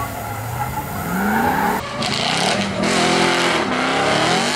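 BMW drift cars revving hard with the engine pitch rising and falling, over tyre squeal from sliding tyres. A different car takes over abruptly about two seconds in.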